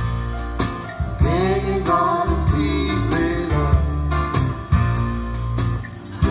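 Recorded music with a singing voice, a steady drum beat and bass, played through Seeburg DDS-1 'Discotheque' speakers with Altec 811 horns, driven by an HH Scott LK-72 tube amplifier. The music dips briefly near the end.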